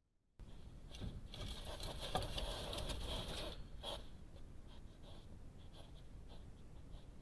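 A hedgehog scuffling and scraping about on the floor of a feeding station, a dense rustling for a couple of seconds that ends in a sharp click, then only faint scattered ticks.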